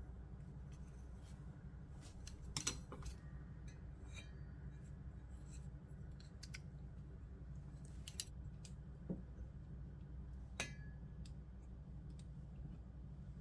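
Scattered light clicks and taps of kitchen utensils, a few sharper ones about two and a half, eight and ten and a half seconds in, over a low steady hum.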